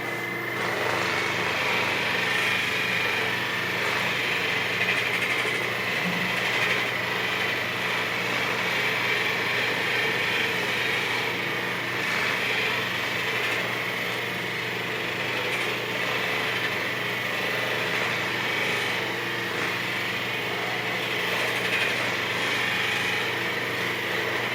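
Handheld percussion massage gun running steadily with an even, buzzing motor hum.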